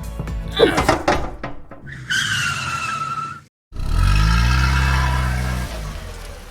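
Car sound effects: a tyre screech lasting about a second and a half, a brief gap, then a car engine revving up and fading away.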